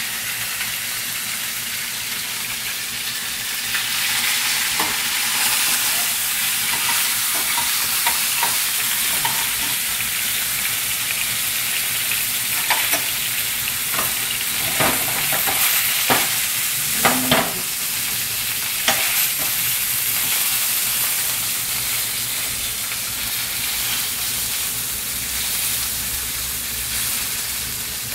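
A crusted bonito tuna fillet sizzling as it sears in hot oil in a stainless steel frying pan, getting louder about four seconds in. Between about twelve and nineteen seconds in there are a few sharp clicks of metal utensils against the pan.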